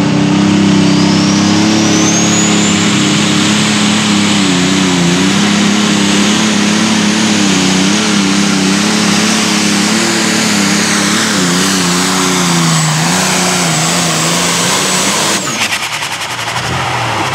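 Turbocharged diesel engine of a super stock pulling tractor running flat out under full load, with a high whine that climbs over the first couple of seconds and then holds. The engine's pitch wavers and sags over the last few seconds as the tractor bogs down, then the sound falls away sharply about fifteen seconds in as the pull ends, leaving a lower, quieter engine note.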